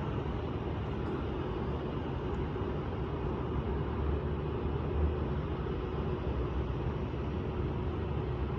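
Jet aircraft engines running steadily: a low rumble with a faint constant hum, no sudden events.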